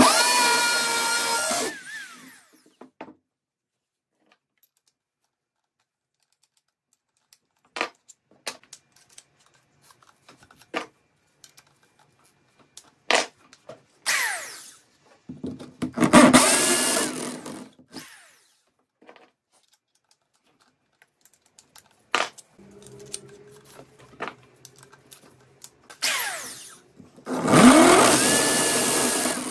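Corded electric drill with a masonry bit boring into a river stone in three bursts. It is running at the start and winds down, then spins up twice more with a rising whine, about halfway through and near the end. Scattered clicks and knocks come between the bursts.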